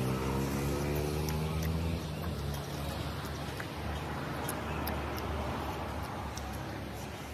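Low rumble of a motor vehicle engine, its pitch rising slightly in the first couple of seconds and then settling into a steady drone. Over it come short sharp clicks of chewing and mouth sounds close to the microphone.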